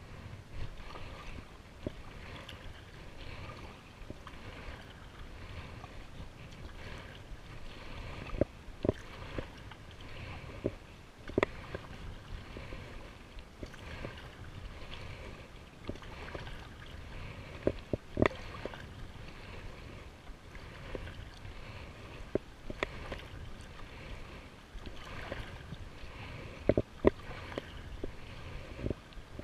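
Paddling a plastic sit-on-top kayak through choppy water: irregular splashes and sharp knocks as the paddle dips and water slaps the hull, over a steady rush of wind and water.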